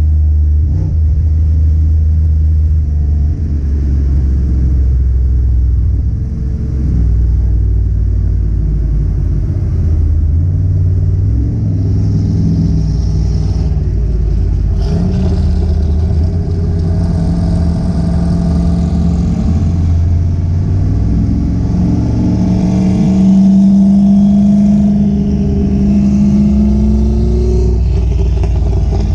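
Car engine running with a deep rumble, its pitch climbing as it accelerates, most strongly in a rise near the end.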